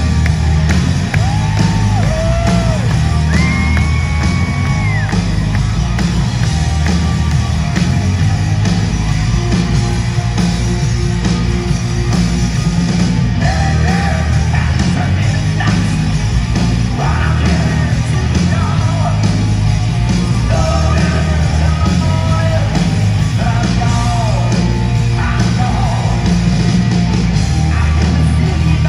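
A heavy metal band playing live, with drum kit, electric guitars and bass under a male lead singer's high, shouted vocals, and some long held, bending notes in the first few seconds.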